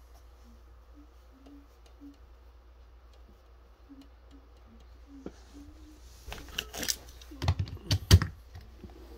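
Handling clicks and knocks, a quick irregular run about six to eight seconds in, loudest just before the end, as the heater's power cords and plug are handled. Before that, only a faint steady hum: the tower ceramic heater gives no fan or heating sound when its buttons are pressed, because it is dead.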